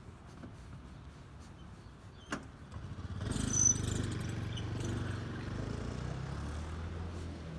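A motor vehicle's engine running close by over a faint street background, coming up strongly about three seconds in and dropping in pitch near the end. A single sharp click comes shortly before the engine rises.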